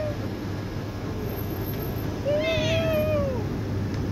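A domestic cat meowing: the tail end of one meow right at the start, then one long meow a little past two seconds in that rises and then falls in pitch, over a low steady hum.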